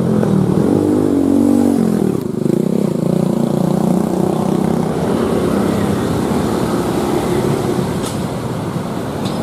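Diesel-electric locomotive engine running under load as it pulls a coach and a baggage van out on a shunting move. The engine note rises and shifts over the first couple of seconds, then holds a steady drone.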